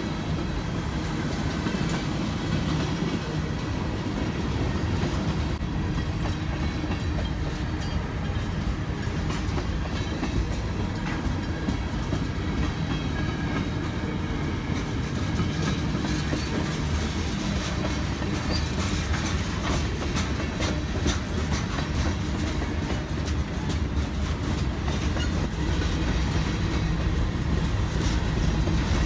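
Freight train passing: diesel locomotives running with a steady low rumble, then the wheels of the freight cars clicking rapidly over the rail joints through the second half.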